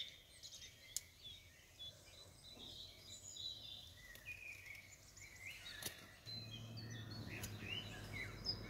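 Faint small birds chirping in the background, with a couple of soft clicks. A low steady hum comes in about six seconds in.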